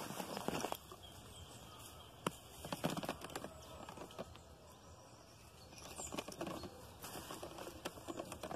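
Tall grass and leafy vegetation rustling and crackling as something moves through it, in irregular bursts with sharp snaps of stems.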